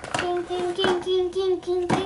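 A child humming or singing on a near-steady note in short repeated pieces, with sharp clicks and knocks of plastic toy pieces being handled, the loudest knock near the end.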